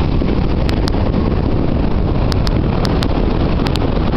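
Steady wind buffeting the microphone over the wash of shallow surf, heaviest in the low end.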